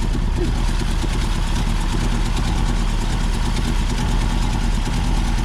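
Car engine running steadily under sustained throttle, held down by a brick on the gas pedal so that it is being run to destruction.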